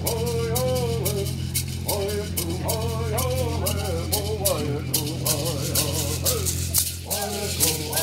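Native Southern California Bird Songs sung by a group of singers, accompanied by gourd rattles shaken in a steady beat, over a steady low hum.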